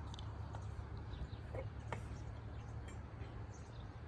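A few faint, light clicks and taps from parts of a cupola being handled as it is taken apart, over a steady low background hum.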